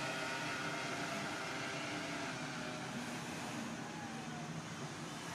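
Steady mechanical hum: several held tones over a background hiss, with a faint falling glide about four seconds in.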